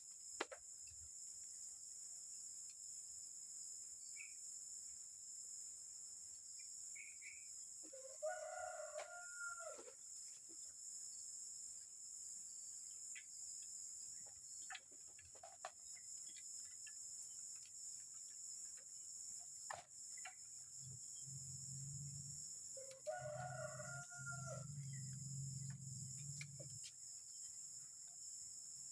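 A cock crows twice, about fifteen seconds apart, over a steady high insect drone. A low rumble comes up around the second crow.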